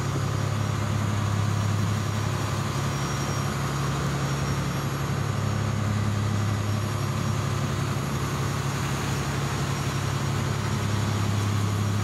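Boat engine running with a steady low drone over the rush of churning water alongside the hull.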